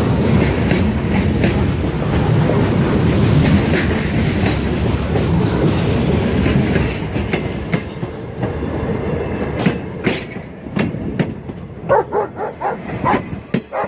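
Freight cars and passenger coaches rolling past at close range, their steel wheels clacking over the rail joints. The rumble thins out in the second half as the last coach goes by, leaving separate sharp clicks, with a quick cluster of them near the end.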